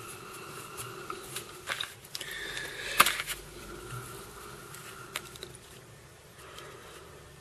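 Small handling noises at a fly-tying vise: fingers working thread and feather make light clicks and rustles, with one sharper click about three seconds in, over a faint steady hum.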